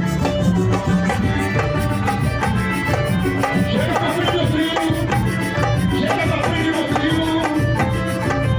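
Live Brazilian samba group playing: hand drums and shakers keep a steady rhythm under a melody line.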